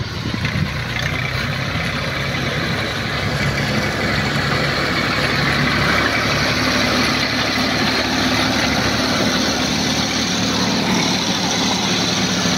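Tractor's diesel engine running steadily while it powers a rear-mounted rope winch hauling in a beach-seine net, with a steady hiss over it.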